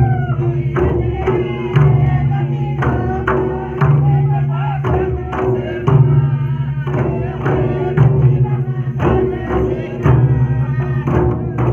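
Folk singing accompanied by two-headed barrel hand drums (mandar) beaten in a steady rhythm, the drum pattern repeating about every two seconds.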